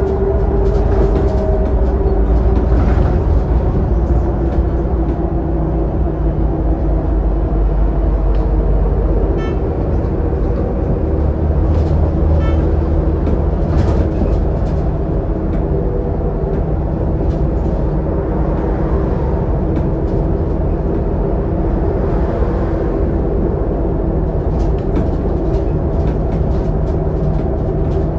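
Scania K280UD double-decker bus running at road speed, its diesel engine drone and tyre rumble heard from inside the lower deck. The deep rumble eases for a couple of seconds about nine seconds in, then picks up again.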